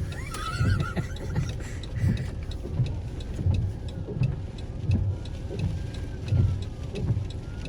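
Inside a moving vehicle: a steady low road and engine rumble with a regular low thump about one and a half times a second.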